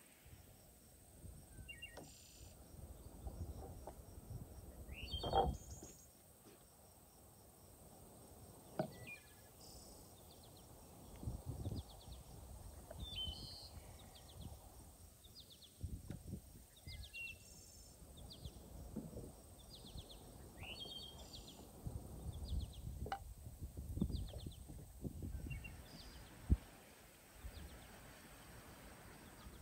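Wild birds chirping on and off over soft low rustling as raw chicken pieces are rubbed with seasoning by hand on a wooden board, with a few sharp knocks.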